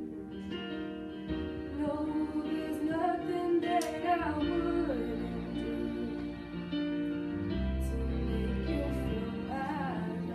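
A female voice singing a slow song over instrumental accompaniment, holding long notes with vibrato.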